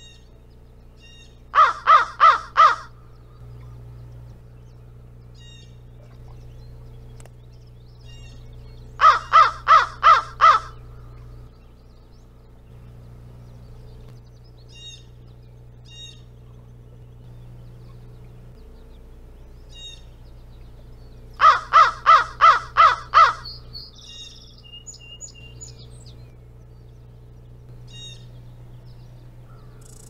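Crow cawing in three quick series of about four, five and six caws, spaced several seconds apart. Faint chirps of small birds sound in between.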